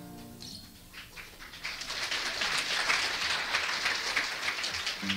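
An acoustic guitar's last chord rings out, then audience applause swells in about a second and a half in. Guitar notes start again near the end.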